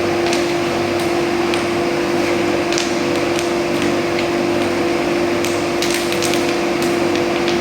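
Food roaster machine running: a steady mechanical hum over a constant rushing noise, with scattered light clicks.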